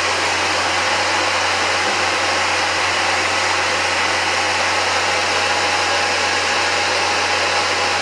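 Air Venturi 220-volt high-pressure electric compressor running steadily, a constant whirring hiss over a low hum, as it pumps a high-pressure air tank up toward full pressure.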